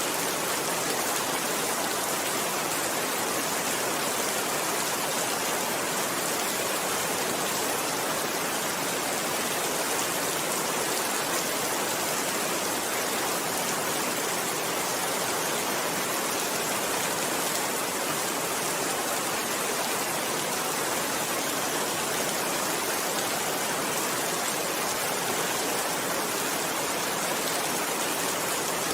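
Steady rain, an even hiss of falling water.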